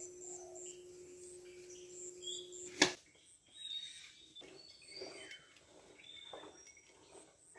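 Birds calling in a rural morning garden: short high chirps and whistled notes, with a few lower call notes in the second half. A steady hum runs under the first three seconds, and a sharp click sounds near three seconds in.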